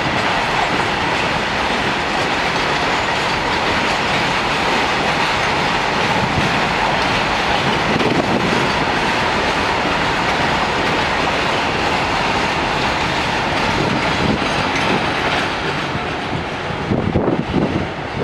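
A rail vehicle running along the track: steady wheel-on-rail rolling noise with a faint steady whine, easing a little near the end.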